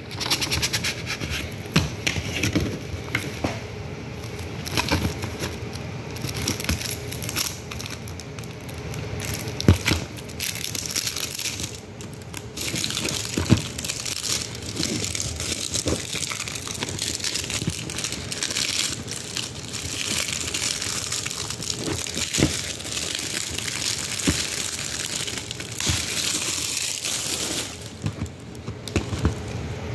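Crinkling and rustling, dotted with many small clicks and taps, as a plastic Blu-ray case and its cardboard slipcover are handled and slid across a fabric bedspread.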